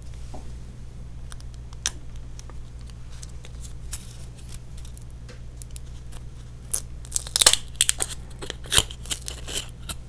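Plastic packaging of a Trolli Planet Gummi being unwrapped: scattered crinkling clicks, then a dense run of sharp crinkles and tearing from about seven to nine and a half seconds in, over a low steady hum.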